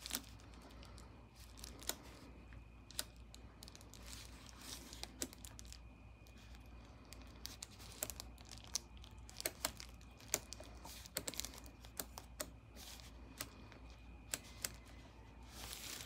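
Front-panel knobs and pushbutton switches of a Marantz 4400 receiver being turned and pressed: an irregular run of quiet, sharp clicks over a faint low hum.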